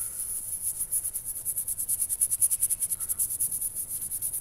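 Small bristle brush scrubbing baking soda over a rusty steel knife blade: quick, scratchy back-and-forth strokes, several a second, scouring off the loose rust.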